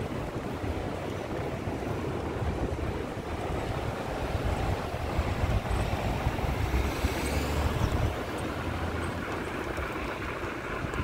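Wind buffeting the microphone: a steady rush of noise with a heavy low rumble.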